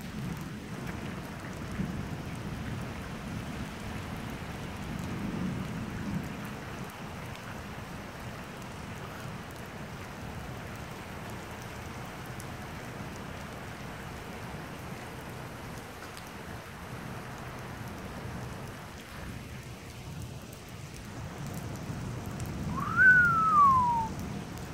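Steady rain pattering, with low rolling thunder in the first few seconds. Near the end a single short whistle rises and then falls in pitch.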